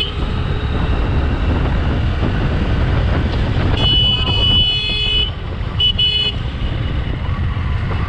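Motorcycle riding along a rough road, with a steady low rumble of engine and wind. About four seconds in a high-pitched vehicle horn sounds for about a second and a half, followed shortly by two quick toots.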